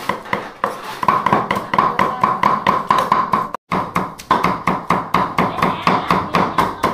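A knife chopping rapidly on a cutting board, about four to five strokes a second, each stroke ringing briefly; the chopping breaks off for a moment about halfway and then goes on.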